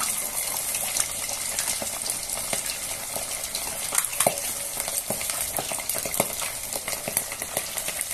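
Marinated pork belly on the rib deep-frying in very hot oil: a steady sizzle with many small crackling pops as the skin puffs into pururuca crackling.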